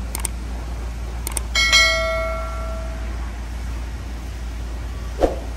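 Subscribe-button animation sound effects: quick mouse clicks, then a notification bell ding about a second and a half in that rings out for more than a second. A steady low hum runs underneath.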